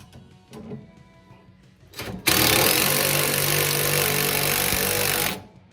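A power tool runs loudly and steadily for about three seconds, starting about two seconds in and cutting off abruptly near the end, as a suspension bolt is tightened down. A few light clicks come before it.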